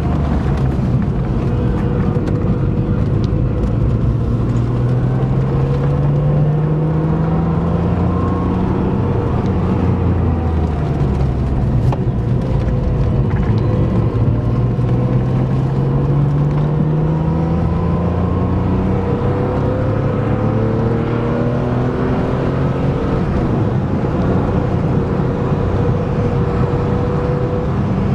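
Car engine heard from inside the cabin, steady and fairly loud. It rises in pitch as the car accelerates and drops back at each gear change, several times over.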